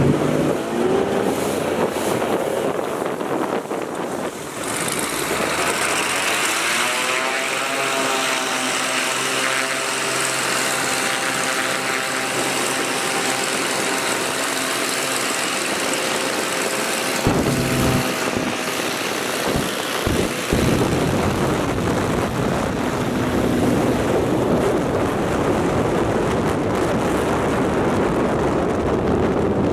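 A single-engine floatplane's propeller engine running at takeoff power as the plane accelerates across the water on its floats. Its note climbs a few seconds in, then holds steady over a continuous rushing noise that grows louder in the second half.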